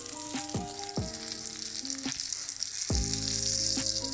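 Breaded fish pieces sizzling in hot oil in a non-stick frying pan, a steady high hiss. Several knocks of a spatula against the pan as the pieces are turned, each ringing on briefly.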